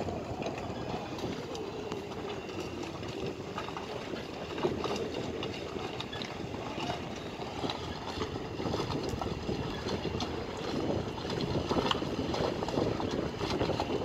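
Harbour dockside noise: a steady low motor rumble, likely from support boats at the pontoon, with scattered knocks and clicks from work on the moored boats.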